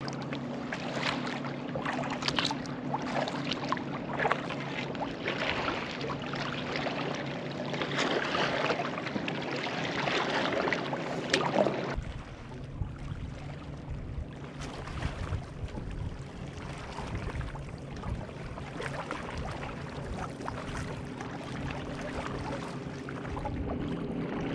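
Kayak paddle strokes: repeated splashes of the blades in lake water, with water running off them. The sound changes abruptly about halfway through.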